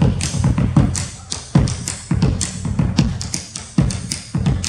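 Bombo legüero, the Argentine folk bass drum, played with sticks in a rhythm: deep thumps on the skin mixed with sharp clacks, about two strikes a second.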